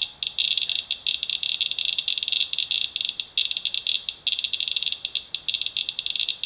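Radalert Inspector Geiger counter chirping with each detected count, an irregular, rapid stream of high clicks, many a second. It is reading a sample of rain-soaked paper towels at an elevated count rate, around 40 to 50 times background.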